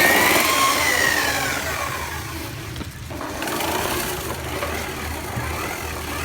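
Handheld electric drill driving a homemade slicer, its motor whining; the pitch falls over the first two seconds, sags near the middle, then picks up again.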